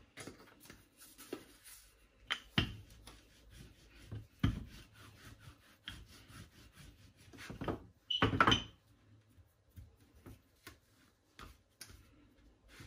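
Wooden rolling pin rolling out a sheet of puff pastry on a wooden chopping board: irregular rubbing strokes and knocks of wood on wood, the loudest cluster about eight seconds in.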